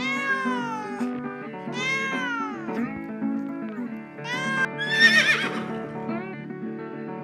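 Domestic cat meowing several times over steady background music: two long calls that rise and fall in pitch, then shorter calls about four to five seconds in.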